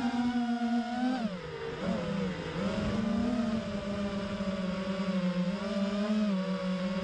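FPV freestyle quadcopter's brushless motors (iFlight Xing-E 2750 KV and T-Motor Velox 2400 KV) whining, heard through the onboard camera. The pitch dips and climbs back several times in the first three seconds as the throttle is chopped and reapplied, then holds fairly steady with small wobbles.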